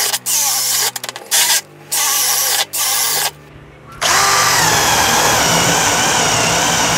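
Bosch GSB 185-LI 18 V cordless drill/driver drilling holes. It runs in short bursts with a few quick stuttering trigger pulls about a second in, then runs steadily for about three and a half seconds from about four seconds in. Its battery is almost exhausted.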